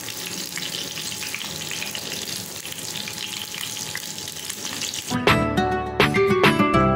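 Batter-coated anchovies frying in hot oil in a pan: a steady sizzle with fine crackling. About five seconds in, music with plucked notes starts and covers it.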